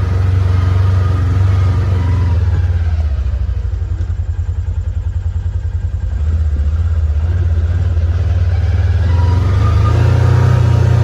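Polaris 4x4 off-road vehicle's engine running under way, easing off to a slower, pulsing beat a few seconds in, then picking up again.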